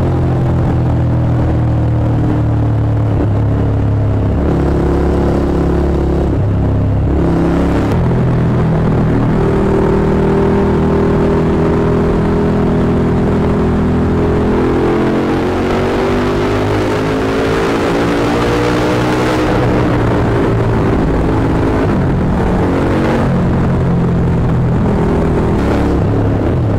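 Motorcycle V-twin engines and exhausts accelerating and shifting through the gears inside a road tunnel, the sound booming back off the tunnel walls. First a Suzuki SV1000, then a KTM 1290 Super Duke GT, the engine pitch rising and dropping with each shift.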